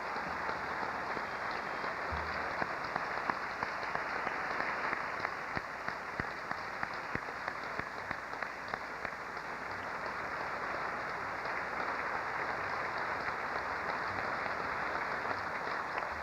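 Sustained applause from a large audience, a dense steady clatter of many hands clapping.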